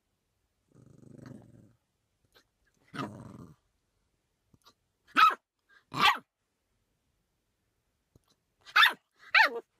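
A dog growls low twice, then gives four short sharp barks, the last two falling in pitch.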